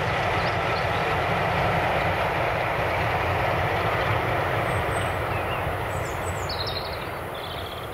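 Steam train hauled by a BR Black 5 4-6-0 locomotive running away into the distance: a steady train noise that slowly fades over the last couple of seconds. A few brief high chirps come in near the end.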